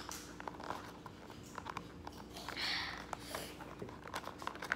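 Small cardboard toy spaghetti box being folded by hand, its top flaps pinched and pressed shut: faint scattered taps and clicks of paperboard, with short rustles about two and a half and three seconds in. The flaps will not stay closed.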